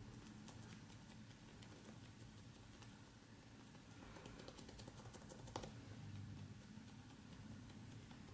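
Very quiet, faint irregular light taps and clicks of fingers pressing and sealing soft dough rounds on a worktop, with one sharper click about five and a half seconds in.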